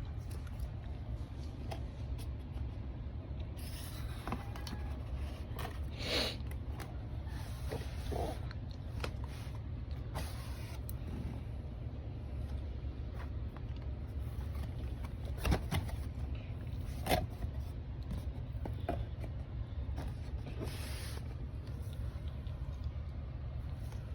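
Keyboard and packaging being handled: scattered clicks and knocks with a few short rustles and scrapes, over a steady low hum.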